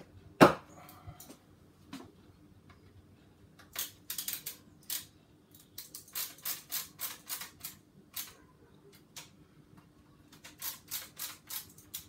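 A hand driver clicking in quick bursts of about five to six ticks a second as it works screws on an Arrma Kraton 6S RC truck's chassis, with one sharp knock about half a second in, the loudest sound.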